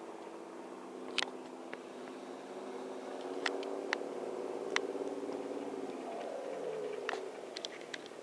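Engine of a harbour work boat running steadily, its note easing down after about six seconds, with several short sharp knocks along the way.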